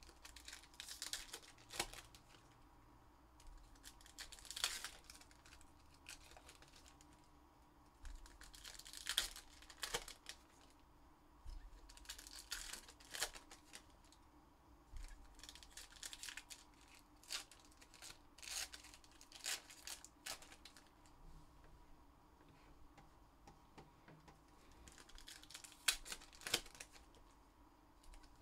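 Foil wrappers of 2021 Upper Deck Goodwin Champions trading-card packs being torn open and crinkled. This comes as a string of short, irregular rustling bursts with brief quiet pauses between them.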